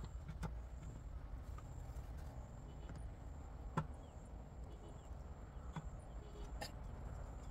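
Faint clicks and crackles of dry tamarind pods being picked up and handled, with one sharper crack of a brittle shell a little under four seconds in, over a steady low rumble.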